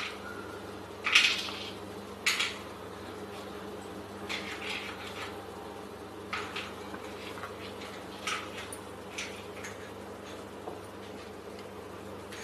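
Metal spoon and ladle clinking and tapping against a steel cooking pan as spice powder is added to tamarind water, two louder clinks in the first few seconds, then lighter ones scattered, over a low steady hum.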